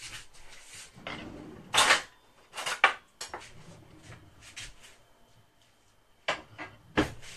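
Kitchen items being handled on a counter: a short rustle about a second in, then a few scattered light knocks and clicks.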